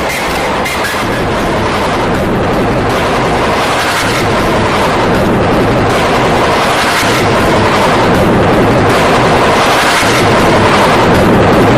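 A loud, dense wall of overdriven noise that grows slowly louder, the deliberately distorted audio of a YouTube Poop remix.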